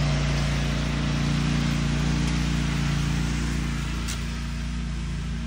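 Riding lawn mower engine running steadily with a low, even hum, growing a little fainter near the end.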